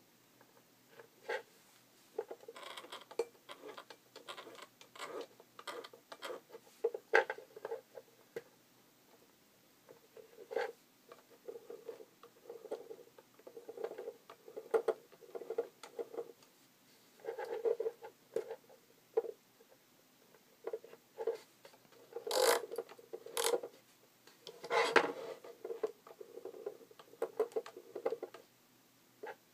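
A large stepper motor from a photocopier, turned by hand as a generator, and the small stepper motor it drives clicking and ticking in short, irregular spurts as the shafts step round. A few sharper clicks stand out about three-quarters of the way through.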